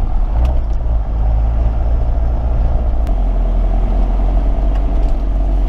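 Jeep Cherokee running while being driven over rough off-road tracks, heard from inside the cabin as a steady low rumble, with a couple of light clicks or rattles.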